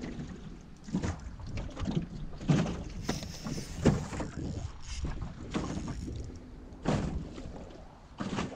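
Irregular splashes and knocks in the water at the side of a small boat, with wind rumbling on the microphone.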